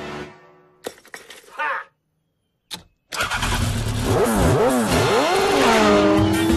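Cartoon motorbike engine sound effect: after a short silence and a click, the engine starts a little after three seconds in and is revved up and down several times, then settles into a steady, slowly rising drone.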